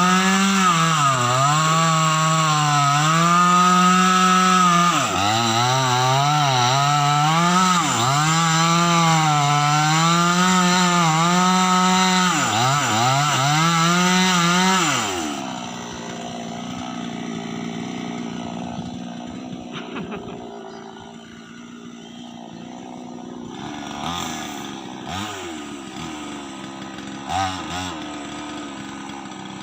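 Two-stroke chainsaw run at full throttle while cutting into a tree, its engine note repeatedly sagging and recovering as the chain bites into the wood. About halfway through it drops back to idle, then is briefly revved a couple of times near the end.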